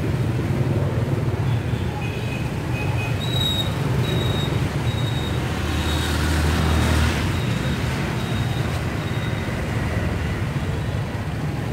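Steady street traffic rumble, with one vehicle passing closer and louder about six to seven seconds in.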